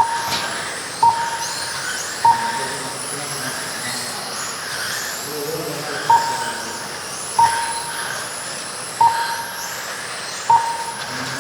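Race timing system beeping as RC cars cross the lap-counting line: about seven short, sharp beeps of one pitch at uneven intervals. Underneath are the high whines of electric RC touring-car motors, rising and falling as the cars speed up and slow down around the track.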